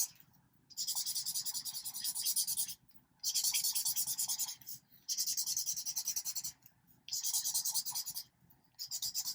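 Felt-tip marker scribbling back and forth on paper while colouring in an area, in quick rubbing strokes. The strokes come in runs of about two seconds, with short pauses between them.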